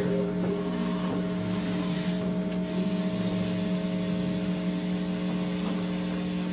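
Steady low hum from a stage sound system: several held tones that do not change, with no speech or beat over them.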